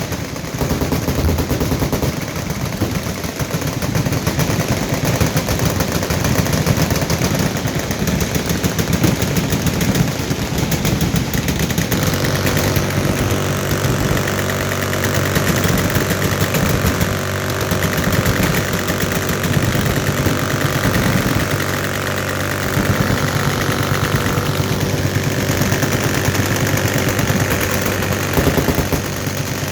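Many machine guns firing full-auto at once, including .50 calibers, in a continuous dense rattle of shots. About twelve seconds in, a steady droning buzz joins the gunfire and keeps going.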